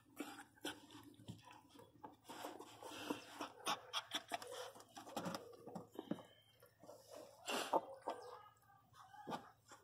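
A pinscher in labour moving and licking herself on a blanket: faint licking and rustling with a few short, soft whines, the sounds of a dog straining through contractions while delivering a puppy.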